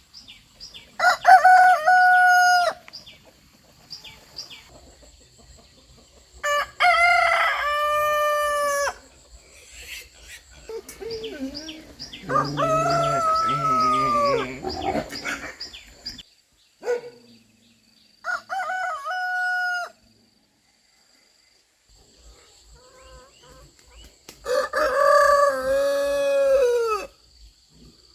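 Roosters crowing in turn, five crows in all, each a long held cock-a-doodle-doo of two to three seconds. The middle crow is lower and longer than the rest.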